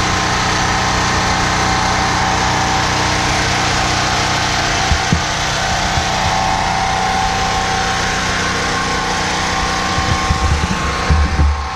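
Champion 3500-watt portable generator's single-cylinder four-stroke engine running steadily, just restarted after its carburetor was cleaned of gum left by old ethanol fuel. A few low thumps come near the end.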